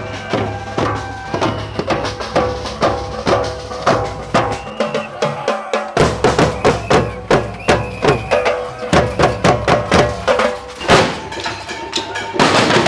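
Marching protest drum band playing: fast, dense drumming with held melodic tones sounding over it. The music changes to a new passage about halfway through, and a loud rushing crash comes near the end.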